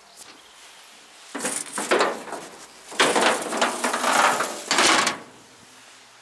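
Hinged sheet-metal engine side panel of a BAT-M artillery tractor being lifted open and handled: rough metal scraping and rattling in two spells, starting about a second in and stopping about five seconds in.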